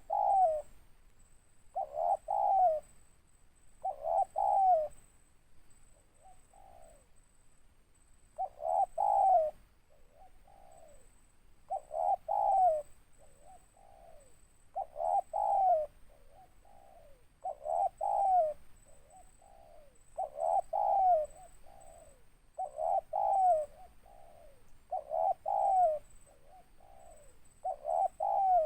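Spotted dove cooing: a short phrase of a few low notes, repeated about every two to three seconds, about ten times.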